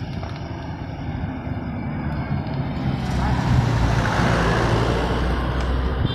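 A truck drives past close by, its engine and tyres swelling to loudest about four seconds in, over steady road-traffic noise.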